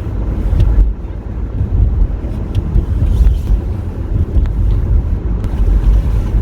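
Car driving on a snow-covered road, heard from inside the cabin: a steady low rumble of tyre and engine noise, with a few faint clicks.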